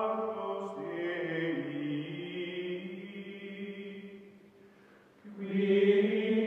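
Outro music of long, held chant-like vocal notes. It fades almost away about four and a half seconds in, then swells back louder about a second later.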